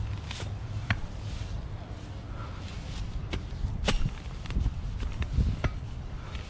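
A few sharp knocks, about four, scattered over a steady low rumble.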